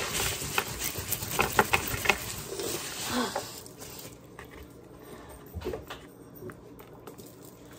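Paper towel rubbing and rustling across a wooden tabletop while it is wiped, with scattered small clicks and taps; it dies down to a few faint ticks after about four seconds.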